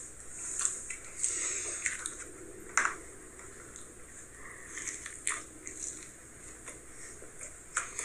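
A person biting into and chewing a mouthful of stuffed-crust pizza close to the microphone: soft, wet, irregular chewing with a few sharp clicks.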